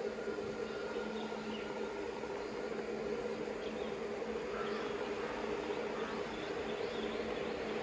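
Steady multi-tone hum of a pair of WAG 7 electric locomotives approaching with a container freight train, with a few faint bird chirps partway through.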